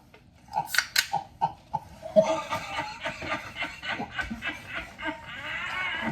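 People laughing in quick repeated bursts, a few short outbursts at first, then continuous laughter from about two seconds in.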